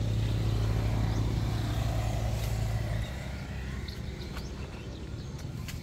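An engine running steadily with a low hum, which turns lower and quieter about three seconds in.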